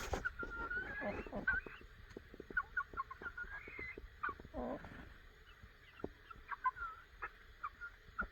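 Chickens clucking, with many short calls and one longer, lower call about halfway through. Scattered light clicks run among the calls.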